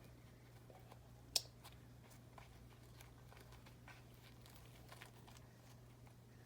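Quiet handling of tiny plastic doll accessories: one sharp click about a second and a half in, then a few faint ticks, over a low steady hum.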